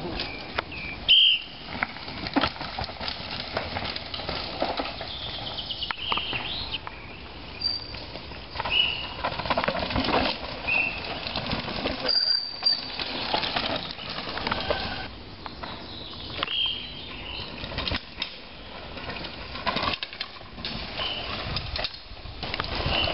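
Downhill mountain bikes passing on a rough forest course: irregular rattling and clattering of tyres and frames over dirt and roots. Short high chirps come and go now and then.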